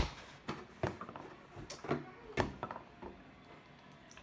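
Kitchen handling noises while milk is fetched: a sharp click, then about five light knocks and clunks in the next two and a half seconds, then quiet.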